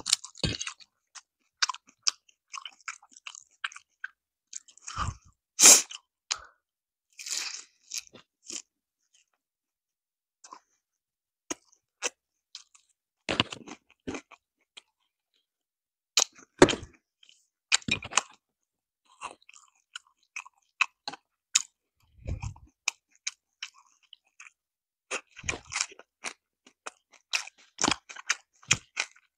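Close-miked crunching and chewing of crispy fried chicken: sharp crackly crunches and wet chewing sounds in irregular clusters, separated by short silences.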